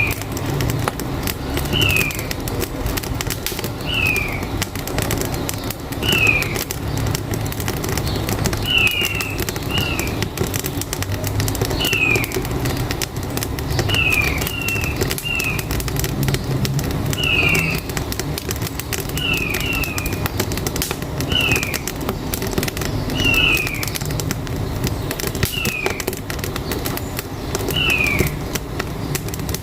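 Wood fire crackling in a wood-burning cookstove, with a bird repeating a short falling call about every two seconds, sometimes twice in quick succession, over a steady low rumble.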